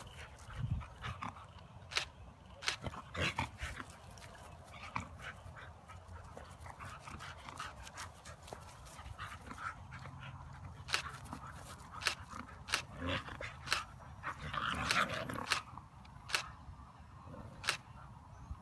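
Siberian husky puppy play-fighting with adult huskies: small yips, whimpers and barks amid many sharp clicks and knocks, busiest a little before the end.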